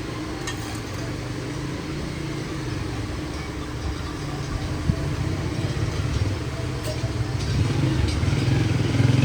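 A motor running steadily with a low hum, getting louder near the end, with a few light clicks over it.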